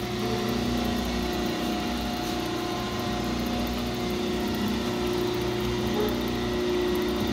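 Daniels 200 lb quad mixer running: its electric motor and roller-chain sprocket drive turning steadily, a constant hum with a few steady tones.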